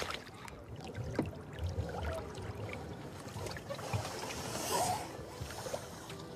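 Water splashing and lapping, with a few short knocks.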